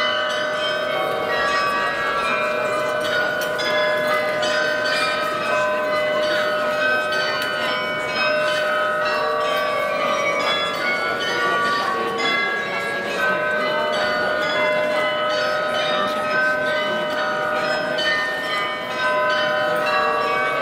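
The tuned bells of the Munich Rathaus-Glockenspiel playing a melody, note after note ringing on and overlapping.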